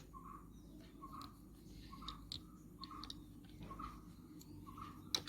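Faint scattered clicks of a plastic GoPro mount being handled, over a soft short chirp that repeats about once a second.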